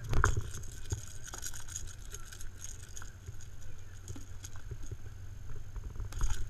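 Handling noise on a paddle board deck as a small striped bass on a lure is held and laid down: scattered knocks and clicks over a low steady rumble, with a loud thump just after the start and another near the end.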